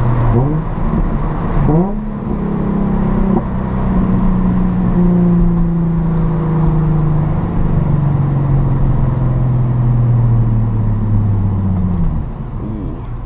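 Car engine heard from inside the cabin, revving up quickly through two gear changes, then pulling steadily with its note slowly sinking until the throttle is eased off near the end.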